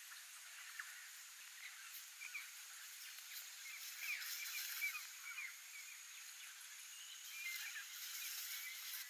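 Wildlife ambience: a steady high insect hum with scattered short chirping calls, busiest about four to five seconds in. The sound is thin, with no bass.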